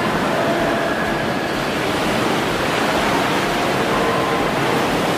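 Sea water surging and washing through a sea cave: a steady, loud rushing of waves with no distinct breaks.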